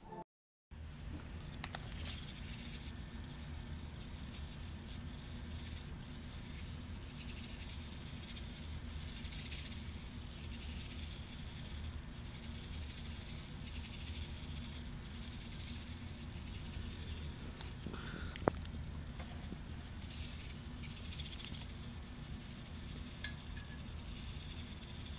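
Rattling and scraping handling noise over a steady low hum and hiss, with scattered clicks, as a quadcopter frame carrying a servo-driven GoPro gimbal is held and tilted by hand.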